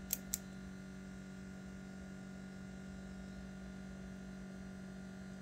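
Two quick clicks of a power switch right at the start, switching on a ZVS induction heater board, then a steady low electrical hum.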